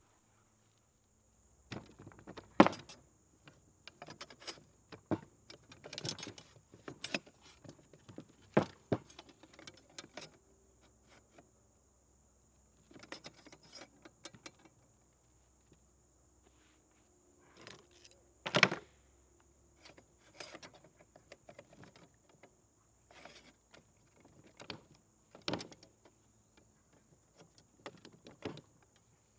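Rusty Manley mechanical floor jack's mechanism being worked by hand, giving irregular metal clicks and clanks in clusters with short pauses. The loudest clanks come near the start, about a third of the way in, and a little past the middle.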